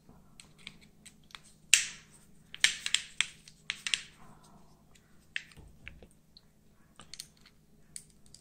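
Handling noise from reassembling a Boker automatic folding knife: scattered sharp clicks and taps of a steel hex key and the knife's metal handle as the scale screws are turned. The loudest click comes a little under two seconds in, with a quick run of clicks between about two and a half and four seconds in.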